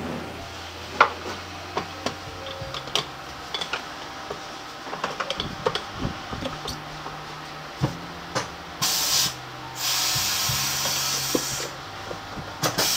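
Scattered clicks and knocks as a scooter wheel is handled and set on a tyre-changing machine, then two bursts of compressed-air hiss, one about a second long and one about three seconds long, from the machine's pneumatic system.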